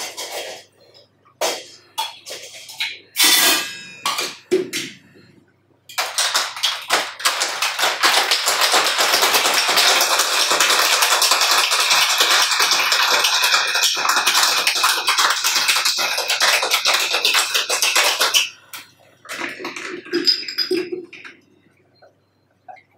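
Metal cocktail shaker shaken hard with ice for about twelve seconds: a dense, steady rattle of ice against metal. A few separate clinks and knocks of the shaker come before the shaking and again after it stops.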